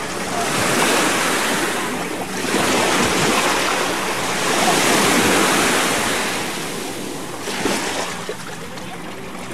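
Small waves washing onto a shallow sandy beach, swelling and fading in three surges about two seconds apart, then quieter near the end.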